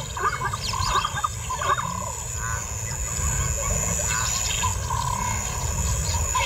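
Lions of a pride growling low as the big male moves among the lionesses and cubs, with short higher-pitched calls scattered over the growling.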